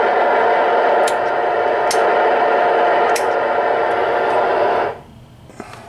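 Loud, steady CB radio static with a buzz of several steady tones, cutting off suddenly about five seconds in.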